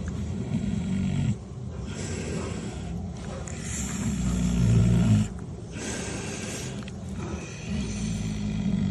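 Sleeping pig snoring up close, in slow, regular breaths. Three low snores of about a second each, the loudest about halfway through, alternate with a breathy hiss of air and short pauses.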